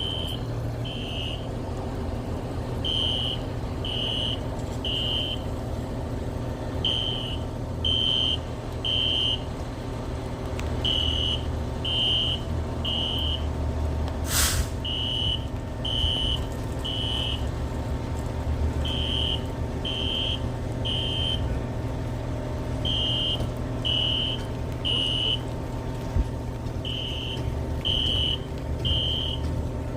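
Building fire alarm sounding the temporal-three evacuation pattern: three short high beeps, then a pause, the group repeating every four seconds. It is a false alarm, set off by water dripping onto the main fire alarm panel. A steady low rumble runs underneath, and a single sharp click comes about halfway through.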